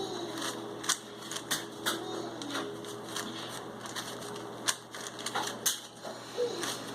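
Plastic speed cube being turned by hands in thick gloves: irregular clicks and clacks as the layers snap round.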